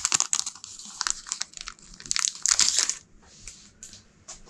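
Clear plastic shrink-wrap crinkling and tearing as it is peeled off a small pack of cards, loudest in two spells, then thinning to a few light crackles.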